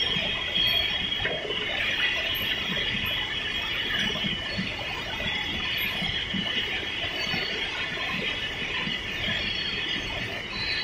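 Factory machinery running with a steady, high-pitched squealing whine over a low rumble.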